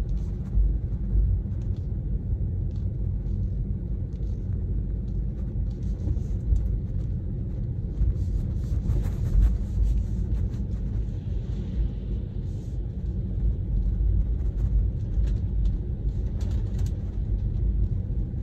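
Steady low rumble of tyre and road noise inside a Tesla's cabin on a wet road, with no engine sound, and faint scattered ticks over it.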